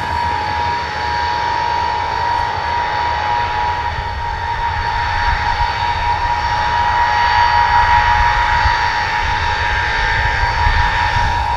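Jet engines of the Il-76LL flying testbed, three D-30KP turbofans and a PD-14 turbofan under test, running as the aircraft taxis. A steady high whine sits over a low rumble and grows a little louder about eight seconds in.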